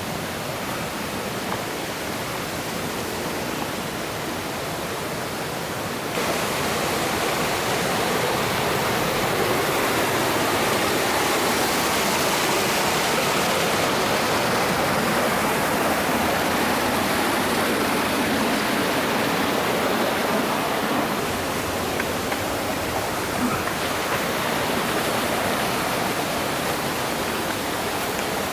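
Rushing water of a rocky mountain stream, a steady hiss of flowing and splashing water. It turns suddenly louder about six seconds in and eases a little near the end.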